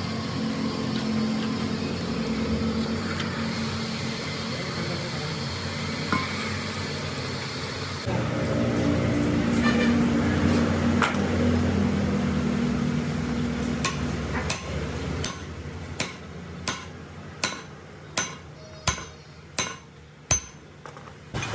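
A steady mechanical hum runs through most of the stretch. About two-thirds of the way in it gives way to a run of about ten ringing hammer blows on metal, roughly one every 0.7 s.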